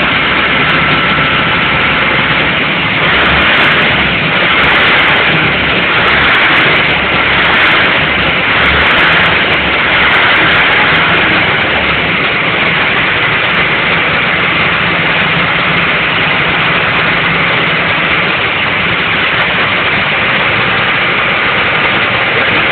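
Loud, steady running of a large machine, with a low throb that pulses for about the first half and then evens out.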